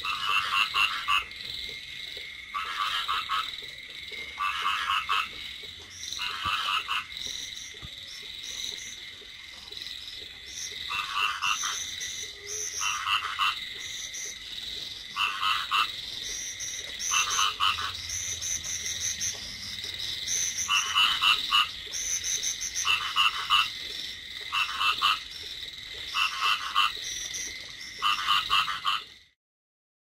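A chorus of paddy frogs (East Asian bullfrogs) croaking: short rattling calls repeat every second or two, a higher-pitched caller overlaps them, and a steady high hum runs beneath. The sound cuts off suddenly just before the end.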